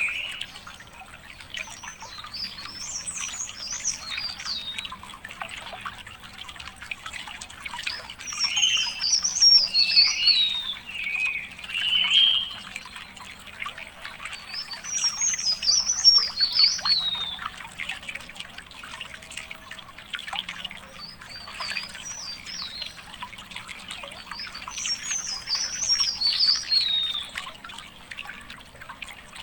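A songbird singing, repeating a high warbled phrase that tumbles down in pitch, about five times, roughly every six seconds, over a faint trickle of water.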